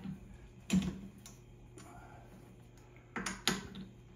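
Cam-lock key turning the cams on a D1 camlock lathe spindle nose to release the chuck. There are sharp clunks: one about three-quarters of a second in, then two close together a little past three seconds.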